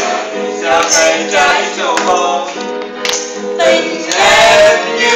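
A small group singing together to a strummed acoustic guitar, with sharp percussive hits several times.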